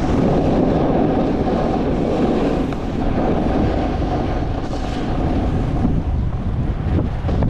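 Steady wind rushing over the microphone of a camera carried while skiing downhill, with the skis running over the packed snow of the piste.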